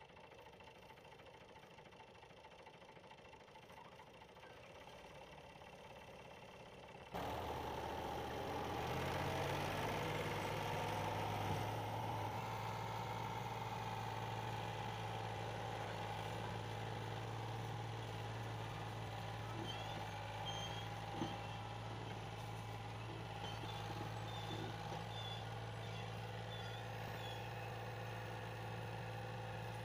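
Fiat 480 tractor's three-cylinder diesel engine running under heavy load as it pulls an overloaded sugarcane trolley. A low steady rumble for the first several seconds, then the engine comes in much louder about seven seconds in and holds a steady labouring note.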